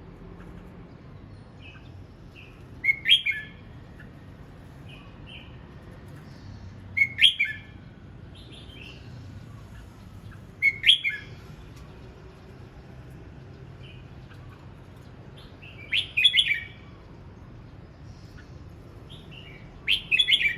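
Red-whiskered bulbul singing training song: five short, loud, warbled phrases about every four seconds, with softer chirps in between.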